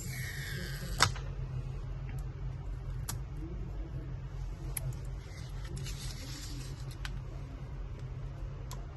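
Clicks and taps from small tools and parts being handled during a laptop teardown, with one sharp click about a second in and a few lighter ones after it, over a steady low hum.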